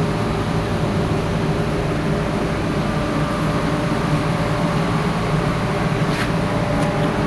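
Air compressor running steadily, a constant mechanical hum with a few faint clicks near the end.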